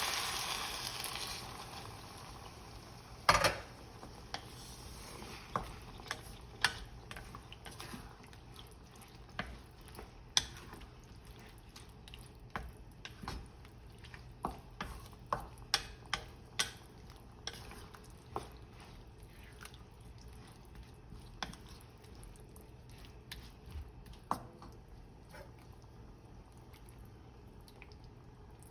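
Curry sizzling in the pan dies away over the first two seconds after coconut milk is poured in. Then a utensil clicks and taps against the cookware at scattered moments while the curry is stirred, with the loudest knock about three seconds in.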